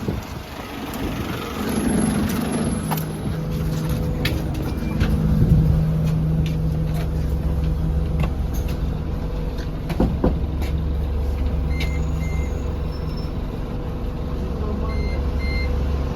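Alexander Dennis Enviro200 single-deck diesel bus engine running with a steady low drone, heard from on board, with a hiss of air about two seconds in. Short electronic beeps come in pairs in the second half.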